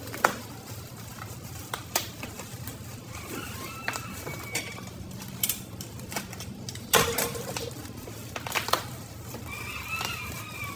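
Bubble wrap being slit with a utility knife and pulled apart by hand: scattered crackles and sharp clicks, with a louder cluster about seven seconds in.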